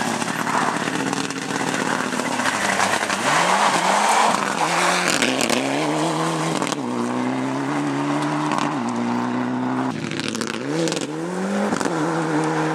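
Mitsubishi Lancer Evolution rally car's turbocharged four-cylinder engine revving hard on a gravel stage, its pitch climbing and dropping several times with throttle and gear changes, over a hiss of tyres and gravel.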